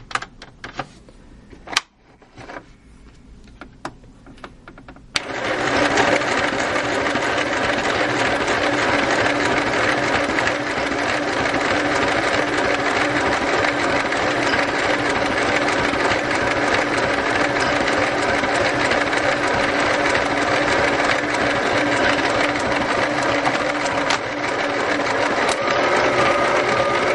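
Battery-powered Singer Pixie Craft sewing machine stitching a tight zigzag through paper: after a few clicks and taps of handling, it starts suddenly about five seconds in and runs steadily.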